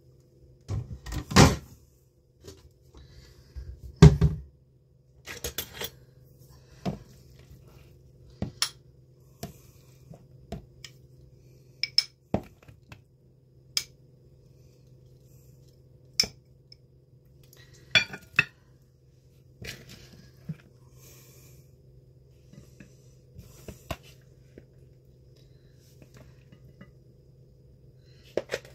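Dishes and cutlery clinking and knocking as food is served onto a plate and into a bowl: scattered sharp clinks, loudest in the first few seconds, over a steady low hum.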